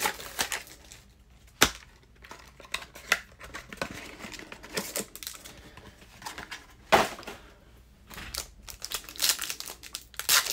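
Foil trading-card packs and their cardboard box being handled and opened: irregular crinkling and rustling of foil, with a couple of sharp snaps, about two seconds in and again about seven seconds in.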